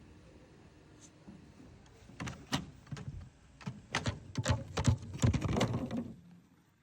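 Irregular series of sharp knocks and clicks, hard objects striking one another, about a dozen over some four seconds, starting about two seconds in.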